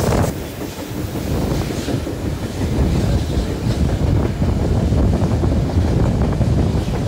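Wind buffeting the microphone at an open carriage window, over the low rumble of the train running on the rails. A louder hiss cuts off about a quarter second in as the train runs out of a rock cutting, and the sound briefly drops before settling into a steady rush.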